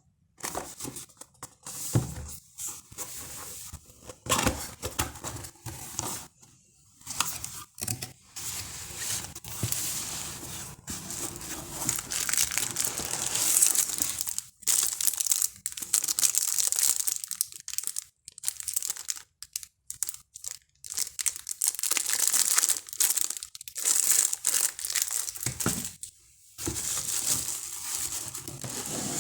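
Packaging being handled and unwrapped by hand, crinkling and tearing in irregular bursts with scattered clicks.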